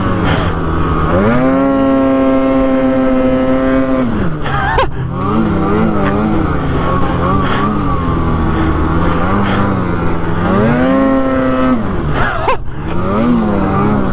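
Snowmobile engine running under way, revving up about a second in and holding a steady high pitch for a few seconds before dropping back, then rising and falling again near the end.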